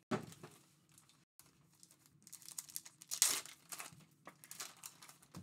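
Foil trading-card pack wrappers crinkling in the hands and being torn open, with the loudest tear about three seconds in.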